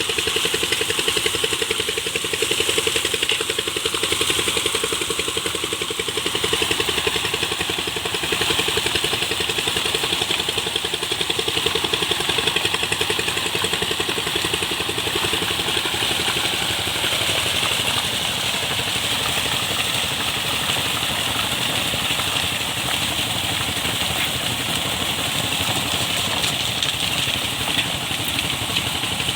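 Engine running steadily at a constant speed, with an even fast pulse and a steady hiss over it.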